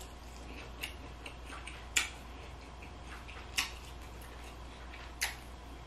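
Close-up eating sounds from a seafood boil: king crab and lobster pieces being pulled apart by hand and chewed. There are a few sharp clicks and snaps, four of them louder and spread out about a second or more apart, over a low steady hum.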